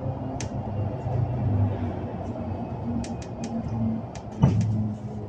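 Mercedes-Benz eCitaro battery-electric bus standing at the stop, a steady low hum with scattered sharp clicks and one loud thump about four and a half seconds in.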